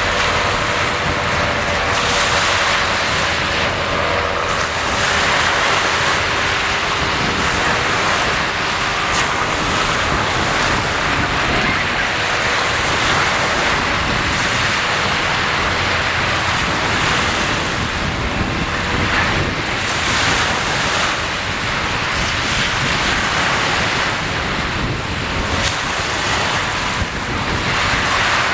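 Sea waves washing in and out, swelling and easing every few seconds, with wind buffeting the microphone. A faint steady hum sits underneath.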